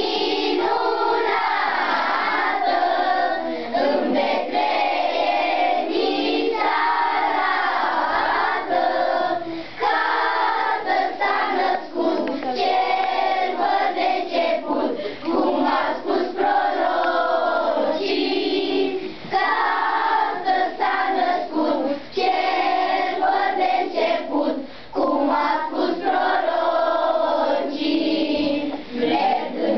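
A group of children singing a song together in chorus, line after line, with short breaks between phrases.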